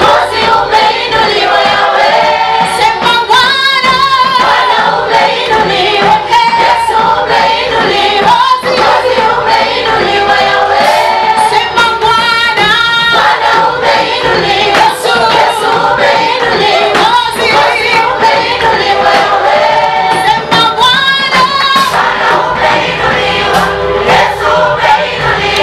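Choir singing a Swahili gospel praise song.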